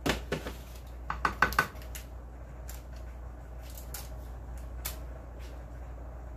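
Spatula knocking and scraping against a metal baking pan lined with parchment paper: a couple of clicks at the start and a quick cluster of sharper taps about a second in, then only faint scattered ticks over a steady low hum.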